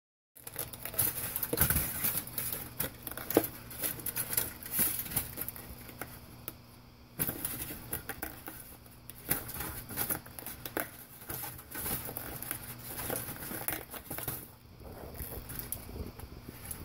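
Aluminium foil crinkling and rubber scraping as a gloved hand works an old tire off an R/C truck wheel, its glue softened by baking; irregular rustling and scratching that comes and goes, over a low steady hum.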